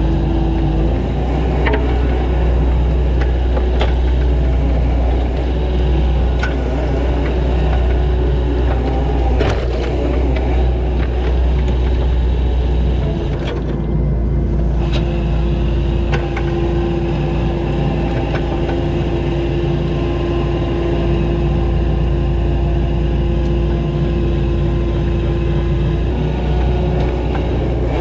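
Kubota SVL90-2 compact track loader's diesel engine running steadily at work with a Harley power rake, a deep drone under a steady whine, with scattered clicks; the engine note shifts about halfway through.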